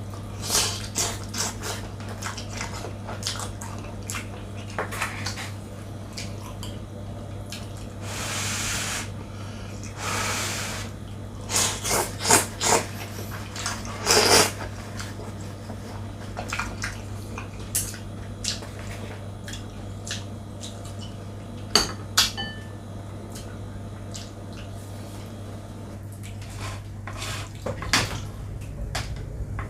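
Mukbang eating noises: utensils clicking and knocking against a bowl, and wet mouth sounds as spicy instant noodles and gyoza are eaten, with two longer slurps about eight and ten seconds in.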